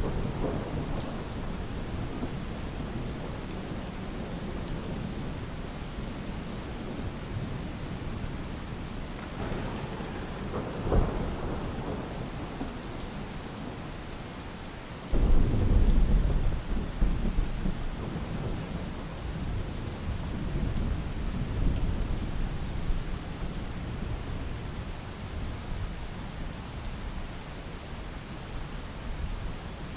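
Steady rain with thunder: a short crack about a third of the way in, then a loud low rumble that starts suddenly about halfway and fades away over several seconds.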